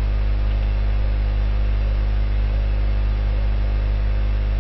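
Steady low electrical hum with a faint hiss, unchanging throughout: the background hum of the recording.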